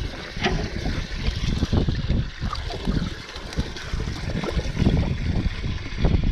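Water trickling and sloshing, with uneven low rumbles of wind buffeting the microphone.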